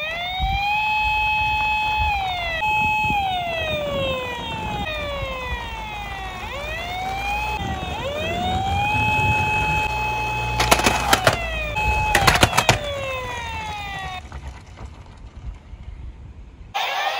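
Emergency-vehicle siren sound from the toy police car and ambulance: wails that rise, hold and fall, several overlapping, over a low rumble of the toy cars rolling down the slope. Two short bursts of clattering clicks come a little past the middle, and the wails stop about three seconds before the end.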